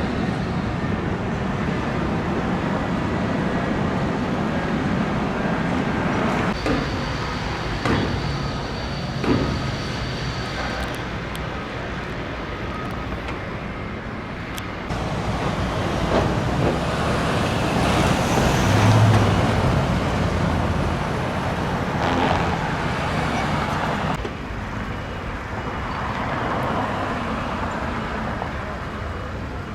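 Road traffic passing, a steady rumble of cars and trucks that swells and fades as vehicles go by.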